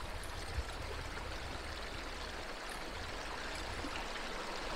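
Mountain stream of fresh water running steadily.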